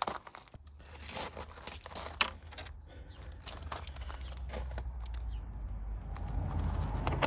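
Scattered small metal clicks and rustles of hands handling bolts and tools in a car's engine bay, over a low rumble that grows louder toward the end.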